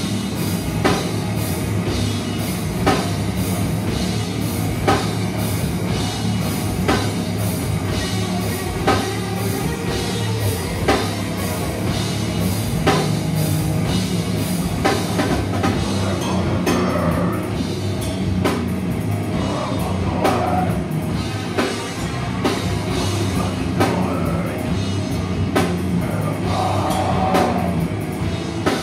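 Live heavy metal band playing: dense distorted guitars and bass over a full drum kit, with heavy drum and cymbal accents landing about once a second.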